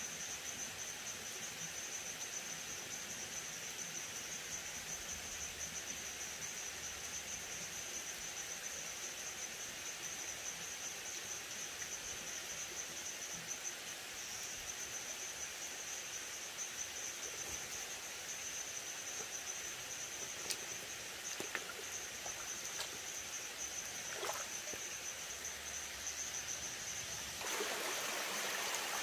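Stream water trickling over rocks, with a steady high-pitched insect chorus. A few faint clicks come after about twenty seconds, and the water grows louder about a second and a half before the end.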